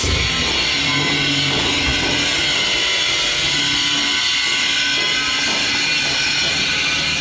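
Balinese gamelan bronze metallophones played in fast, dense strokes, a steady metallic ringing of many pitches at once, with lower held notes sounding now and then.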